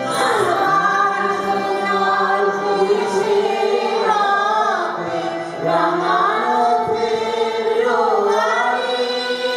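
A group of singers, mostly women, singing a Bengali song together in unison, with a harmonium's steady held notes under their voices.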